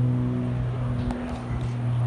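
Twin piston engines and propellers of a Cessna 402C droning steadily as it climbs out after takeoff, a low even hum that dips briefly about a second in.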